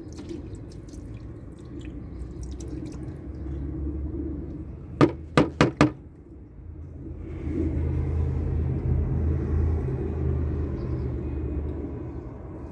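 A metal part being swished and rinsed by hand in a tray of cleaning fluid, over a steady low rumble. Four sharp knocks come in quick succession about five seconds in and are the loudest sound.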